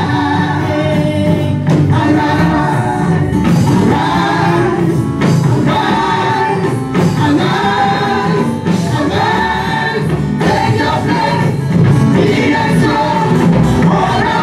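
Gospel music with a choir singing over a band with a steady beat.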